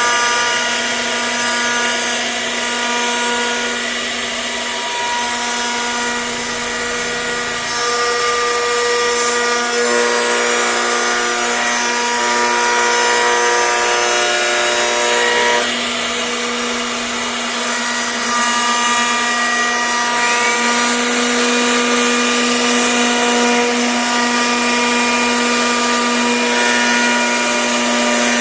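CNC router spindle cutting wood: a steady high-pitched whine with a hum beneath it. Several overlapping tones shift in pitch every few seconds as the machine moves, and the hum steps up slightly about two-thirds of the way in.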